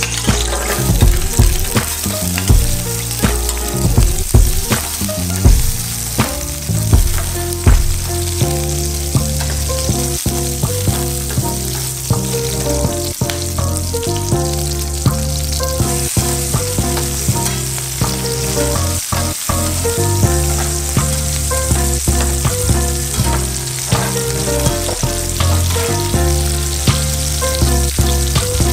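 Sliced garlic, spring onions and red chillies sizzling in hot oil in a non-stick frying pan, a steady hiss. Frequent sharp clicks, most of them in the first several seconds, as the pieces drop in and are stirred against the pan.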